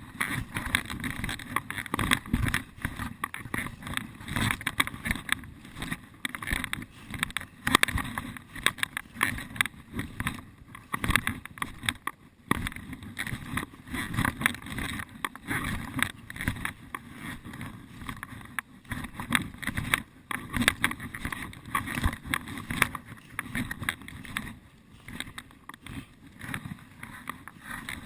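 Footsteps moving through forest undergrowth, with irregular crunching and rustling of dry leaves and twigs.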